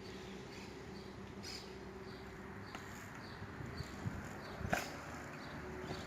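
Faint outdoor background with small bird chirps recurring throughout, and one sharp knock about three-quarters of the way through.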